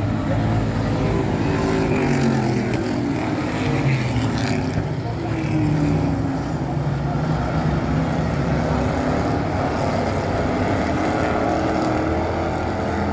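Engines of several dirt-track stock cars running as they circle the oval, their pitch rising and falling as the cars accelerate and lift.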